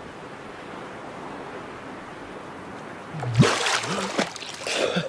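Quiet lapping water, then a little over three seconds in a swimmer lifts his head out of the water with a loud splash and gasps for air, breathing hard, surfacing after holding his breath face-down.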